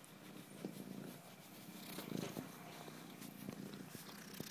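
Domestic cat purring steadily, close up, with a few faint ticks over it.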